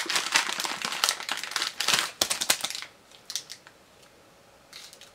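Plastic candy bag crinkling and rustling as it is handled, for about three seconds, while small hard candy balls are tipped out; then only a few faint ticks and a short rustle near the end.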